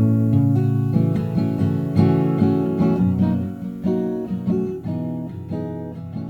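Acoustic guitar music, notes plucked one after another, gradually fading out near the end.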